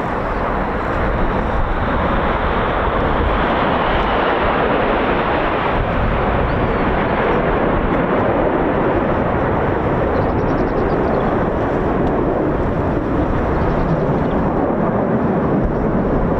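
Steady jet noise from the Red Arrows' BAE Hawk T1 jets flying their display, a continuous loud roar with no clear rise or fall.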